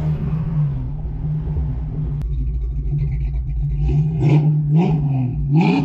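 1988 Mustang GT's V8 engine running, its pitch rising and falling as it revs, with a few louder surges late on.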